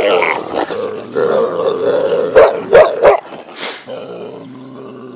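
Central Asian Shepherd (alabai) puppies growling continuously as they wrestle. Three loud, sharp sounds come in quick succession about two and a half seconds in, and the growling fades to a softer grumble near the end.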